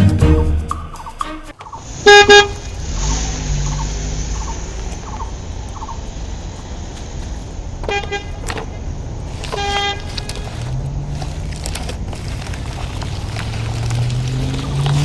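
Background music stops about a second and a half in. Then a motor vehicle hum sets in, with three short loud horn honks and an engine pitch that rises and falls later on.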